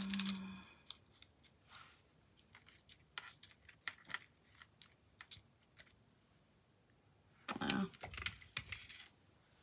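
Scattered light clicks and taps of small craft pieces and tools being handled on a work table, with a louder clatter about three-quarters of the way through.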